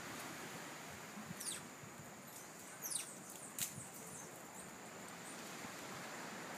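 Faint outdoor ambience with a few short, high chirps, each sliding down in pitch, around the middle.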